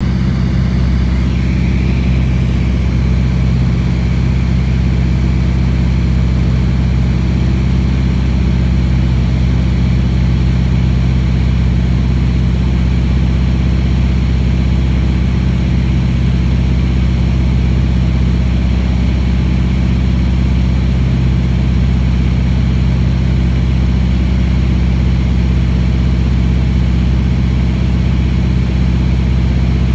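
Steady drone of a high-wing propeller plane's engine in level flight, heard from inside the cabin: a loud, unchanging low hum made of several steady pitches.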